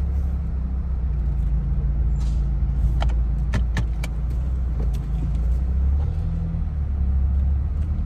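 Car driving slowly, a steady low engine and road rumble heard from inside the cabin, with a few sharp, irregular clicks about halfway through.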